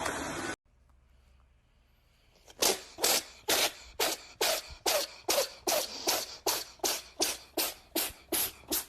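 A rapid run of short sneezes, about two a second and evenly spaced, starting after a brief quiet gap.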